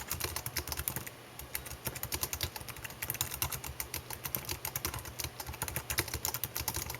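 Fast, steady typing on a computer keyboard: quick clatter of key clicks, several a second, with a short pause about a second in.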